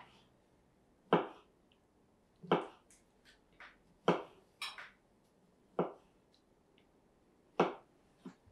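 Kitchen knife chopping food on a cutting board: slow, irregular strokes, about six sharp knocks a second or so apart, with a few fainter taps between.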